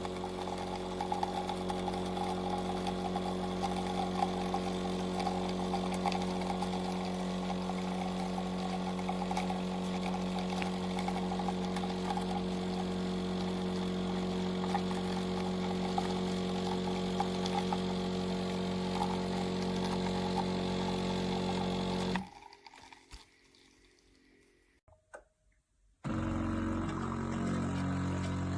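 De'Longhi Magnifica S automatic espresso machine running with a steady mechanical hum for about twenty seconds, then cutting off sharply. After a few seconds of quiet and a small click, the machine starts another steady run near the end.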